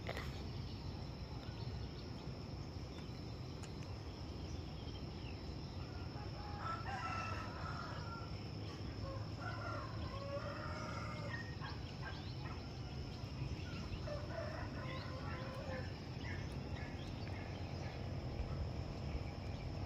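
Rooster crowing a few times, with chickens clucking, from about six seconds in to about sixteen, over a steady thin high-pitched whine.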